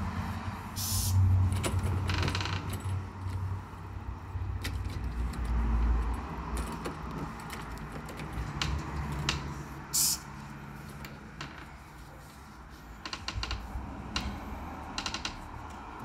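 Metal doorknob and deadbolt rattling and clicking as they are wiped with a towel, with cloth rubbing. Two short hisses from a spray bottle, about a second in and again some nine seconds later.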